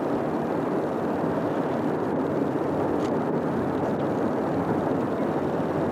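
Steady rumble of a distant freight train, four diesel locomotives and a long string of cars, crossing a steel truss bridge.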